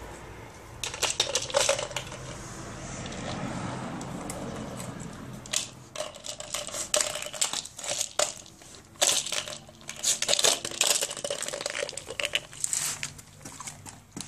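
A treat ball with dry treats inside rattling and clicking as a dog noses it around on concrete, in irregular bursts of sharp clatter.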